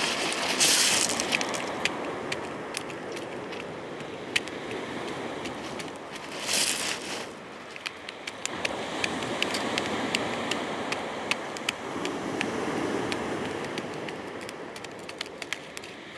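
Open wood fire crackling, with scattered sharp pops over a steady rushing background. Two brief louder rushes stand out, about a second in and again about seven seconds in.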